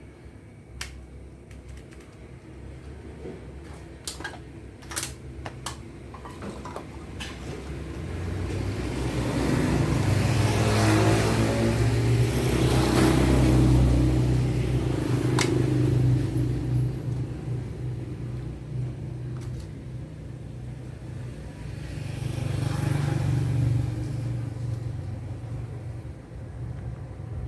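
A few small clicks and taps of parts being handled, then a passing road vehicle's engine rumble that swells up and fades away, with a second, shorter pass near the end.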